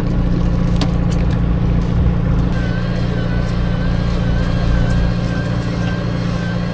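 Fishing boat's engine running steadily with a low hum. About two and a half seconds in, a faint, wavering high whine joins it, along with a few light clicks earlier on.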